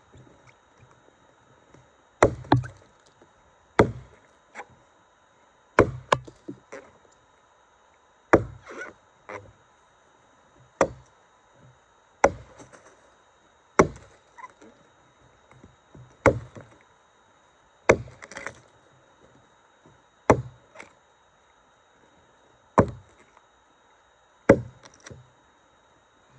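Tuatahi camp axe on a beech racing handle chopping into a redgum log: about a dozen sharp chopping strikes, roughly one every two seconds, several followed by one or two lighter knocks.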